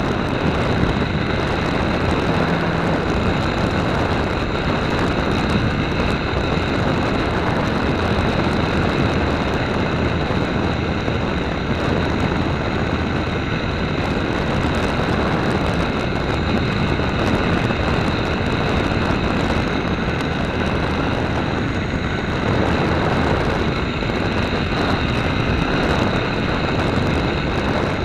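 Radio-controlled model plane's motor and propeller running steadily in flight, a constant whine with wind rush, heard from a camera on board.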